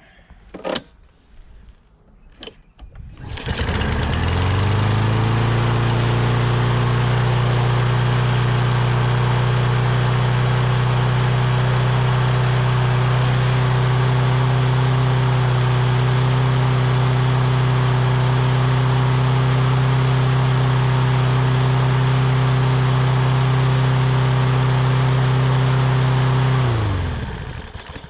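Lawn Boy push mower's 6.5 hp Kohler engine starting about three seconds in, quickly rising to a steady, even run, then winding down near the end as it is shut off. It fires right up and keeps running on its own fuel with a newly replaced carburetor, which cures its earlier no-start.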